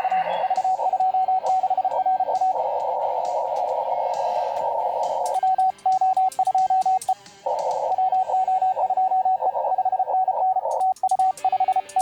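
Morse code (CW) heard through an amateur radio transceiver's narrow CW filter: a single tone keyed in dots and dashes over a band of receiver hiss on the 10-meter band. Twice the hiss drops out while the keyed tone carries on, as when the station's own transmitting is heard as sidetone.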